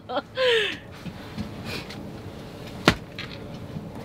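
A single sharp knock or clack about three seconds in, over a low steady background. A short falling vocal sound trails off just at the start.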